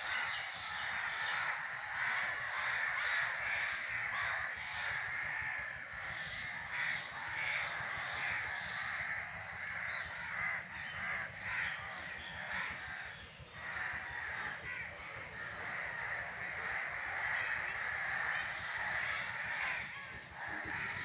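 A flock of crows cawing continuously, many calls overlapping without a break.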